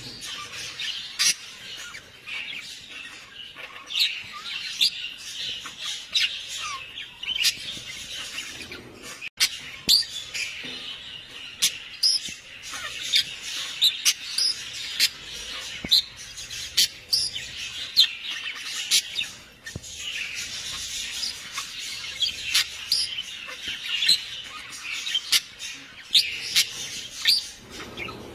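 Birds chirping busily, with many short, sharp calls overlapping one another.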